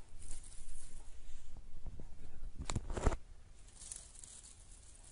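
Rustling and scuffing against fabric, with a short burst of knocks about three seconds in, softer after that.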